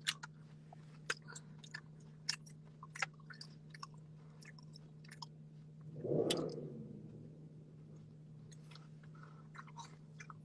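Close, wet chewing of fruit salad with the mouth open: scattered short smacking clicks, over a steady low hum from the car. About six seconds in there is one brief, louder rush of noise.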